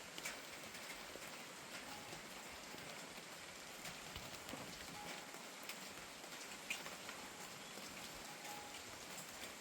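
Steady rain falling, an even soft hiss with scattered single drops striking close by.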